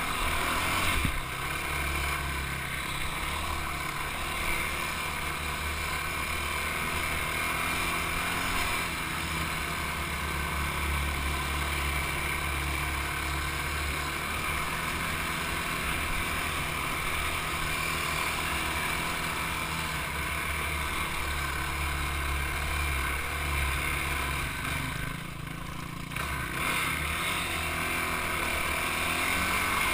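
Engine of an off-road vehicle running steadily under throttle on a dirt trail, with wind and rumble on the mounted camera's microphone. Near the end the engine eases off briefly, then picks up again.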